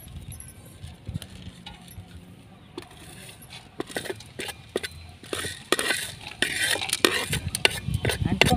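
Metal spoon scraping and clinking on a steel plate while whole spices such as black peppercorns are pushed off it and rattle into a dry metal pan. The clinks and scrapes start a few seconds in and come faster toward the end.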